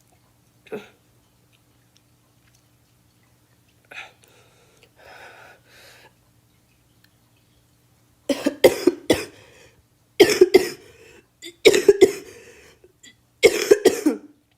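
A girl coughing in four loud bouts of two or three sharp hacks each. The bouts start about eight seconds in and come about every second and a half.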